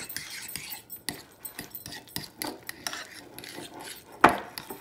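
Metal fork stirring and mashing egg yolks with mayonnaise and mustard in a ceramic bowl: quick repeated clinks and scrapes of the fork against the bowl, with one louder knock near the end.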